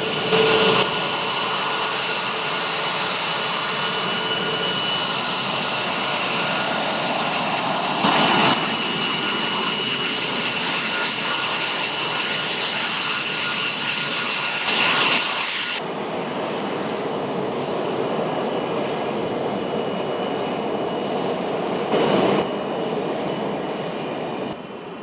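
Fighter jet engine running with a steady rushing noise and high-pitched whine, with short louder swells about every seven seconds. About two-thirds of the way through, the high whine drops away and a duller rush remains.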